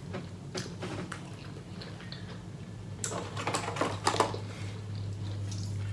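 Hands picking through a seafood boil in a disposable aluminium foil pan: scattered small clicks and crinkles, busiest about three to four seconds in, over a low steady hum.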